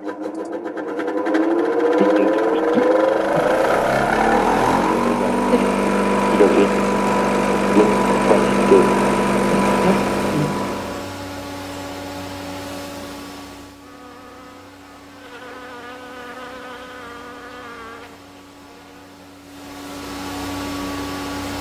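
Buzzing whine of a tape rewinding. Its pitch rises over the first few seconds, then holds steady, and about halfway through it drops to a quieter, wavering hum.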